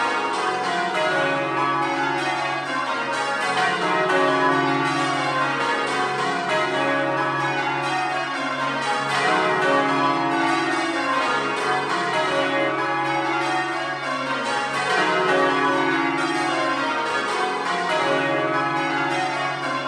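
A ring of tower bells being rung, struck one after another in rows that step down from the highest bell to the lowest and repeat every few seconds, the notes overlapping and ringing on.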